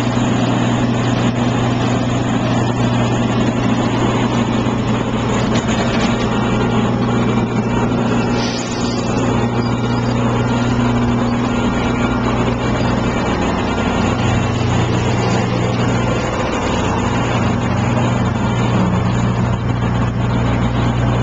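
Asphalt cold milling machine running steadily: a droning diesel engine over the continuous grinding noise of the cutter drum taking up old asphalt.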